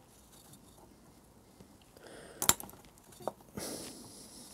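Small metal hand tools and switch parts handled on a workbench: a sharp click about two and a half seconds in, a lighter click just after, then a short hiss.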